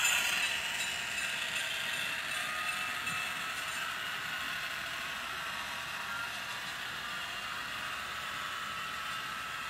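Model train running on its track: a steady whir and light clatter of small wheels rolling on the rails as a string of double-stack container well cars goes by. The louder locomotive motor-and-gear noise fades over the first second as it moves away.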